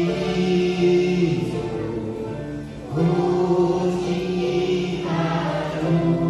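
A group of kindergarten children and their women teachers singing together as a choir, holding long notes. There is a short break between phrases about three seconds in.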